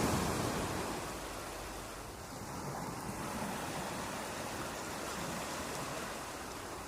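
Sea waves washing on the shore: the rush of a wave fades over the first second or two, then a steady, lower wash of surf.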